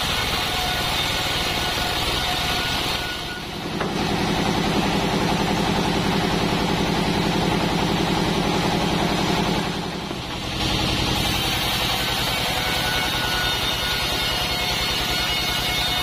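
Large sawmill log band saw and its machinery running with a steady mechanical hum. The sound briefly dips about three seconds in and again about ten seconds in. Between the two dips a stronger, lower hum takes over.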